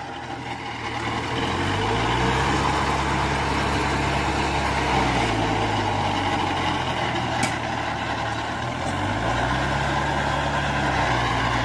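Kubota 4x4 tractor's diesel engine working hard to drive a rotavator through freshly ploughed soil, with the PTO in its 750 setting. The engine note sags and picks up again as the load changes, over the steady churning of the rotavator blades.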